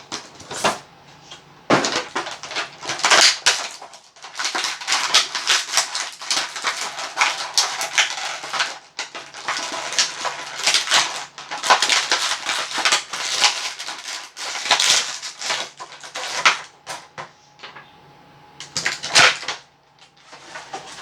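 Toy figure packaging being opened by hand: plastic and cardboard crinkling and crackling in dense runs of sharp clicks, easing off near the end.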